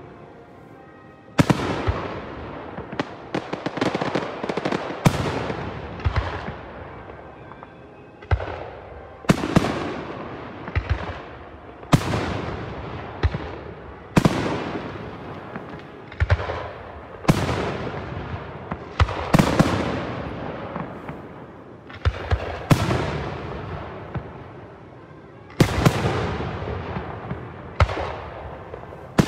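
Aerial firework shells bursting one after another, a sharp bang every second or two, each trailing off in a long echo, with a few faster clusters of bangs and brief lulls between volleys.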